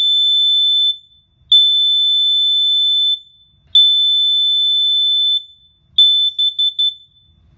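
Kidde KN-COEG-3 plug-in carbon monoxide and explosive gas alarm sounding its test alarm: loud, high-pitched beeps, each about one and a half seconds long, repeating about every two and a quarter seconds. The last beep breaks into a few short chirps and stops about a second before the end.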